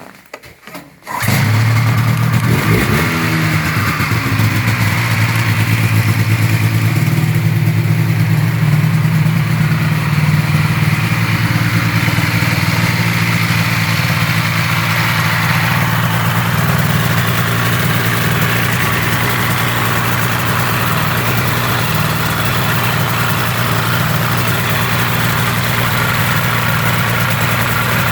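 Ski-Doo MXZ 583 snowmobile's two-stroke twin engine catching about a second in, right after its rebuild. It revs briefly, then settles into a steady idle.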